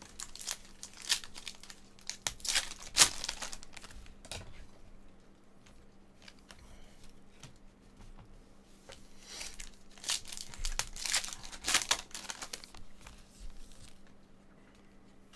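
Plastic foil wrappers of Panini Prizm trading-card packs crinkling and tearing as the packs are opened. The crackling comes in two spells, through the first four seconds or so and again from about nine to thirteen seconds in.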